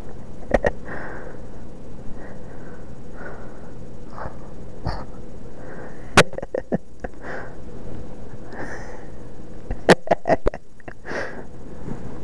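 Breathy sniffs close to the microphone, repeating every second or so, mixed with sharp clicks and rustling from handling. The loudest part is a quick cluster of clicks about ten seconds in.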